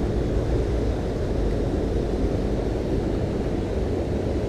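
Waterfall water rushing: a steady, even rumbling noise.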